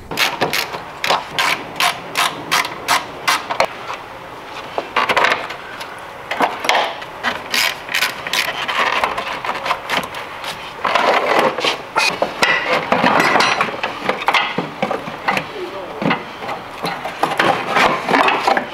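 Ratchet wrench clicking in quick runs while nuts on a car battery's terminals are loosened, with handling knocks between the runs.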